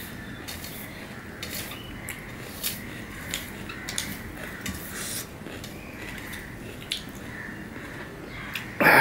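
Hand-eating mashed pomelo pulp from a steel plate, close-miked: fingers mixing the wet pulp and touching the plate make short clicks a few times a second, with mouth sounds. A loud thump comes near the end.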